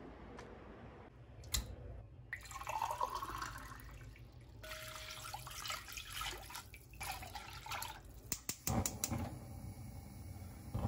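Water running and splashing, with a few light clicks and a cluster of knocks near the end.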